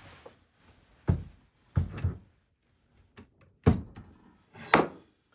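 Wood and tools being handled on a workbench: about six separate sharp knocks and thuds with pauses between them, the two loudest in the second half.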